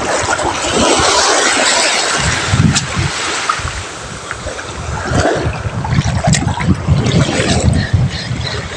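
Waves washing on the shore with gusty wind buffeting the microphone, a steady rushing noise with uneven low rumbles.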